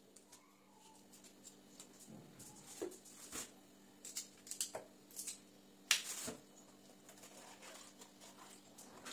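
Food prep at a stainless-steel kitchen sink: a knife trimming parsley stems while vegetables are handled. It is a run of small clicks and rustles, the loudest about six seconds in, over a faint steady hum.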